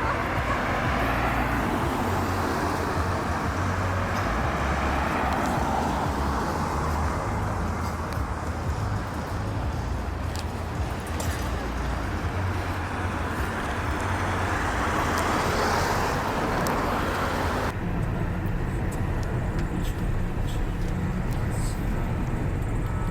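Road vehicle noise, a steady rumble and hiss that swells and fades a few times as vehicles pass. The higher hiss drops away suddenly about three-quarters of the way through.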